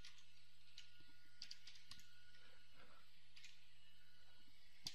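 Faint computer keyboard typing: scattered keystrokes, with a sharper click near the end, over a steady low hum.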